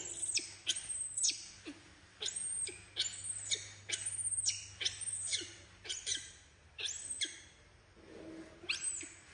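Baby macaque giving a rapid series of shrill squeals, each sliding steeply down in pitch, about two a second, with a brief pause near the end.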